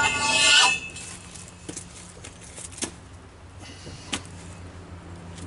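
A long steel cheater pipe on a socket and bar straining against a very tight lug nut on a truck's front wheel: a loud metallic scrape in the first second, then a few light metallic clicks over a low steady hum.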